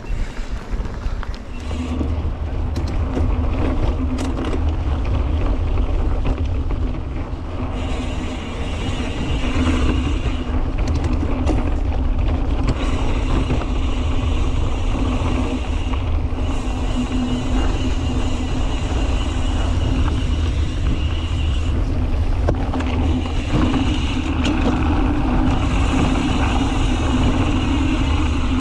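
Mountain bike riding on a dirt trail heard from a bike- or rider-mounted action camera: steady wind buffeting on the microphone over the rumble and hum of the tyres rolling along the trail.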